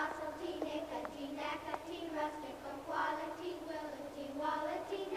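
A class of young children singing a repetitive song together in unison, without accompaniment.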